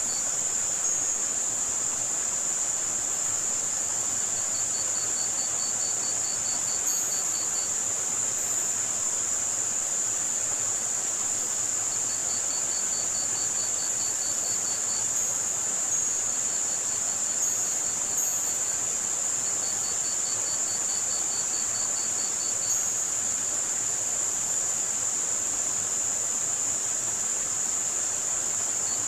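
Tinnitus-relief sound mix: a steady, high-pitched band of white noise with crickets chirping in runs of rapid pulses every few seconds, over a soft, even hiss.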